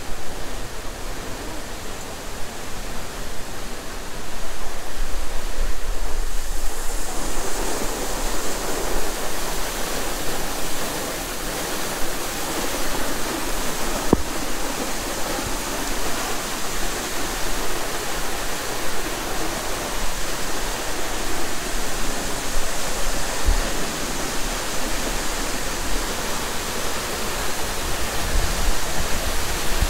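Steady rush of falling water from a waterfall, growing louder and fuller about seven seconds in.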